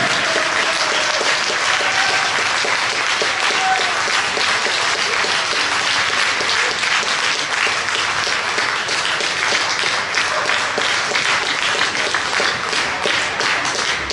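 Audience applauding, a dense patter of many hands clapping that thins out toward the end, greeting the announced winner of the bout.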